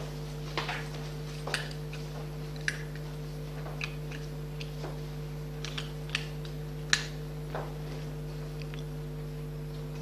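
Laptop at the lectern being worked by hand: scattered light clicks and taps at irregular intervals, the sharpest about seven seconds in, over a steady electrical hum.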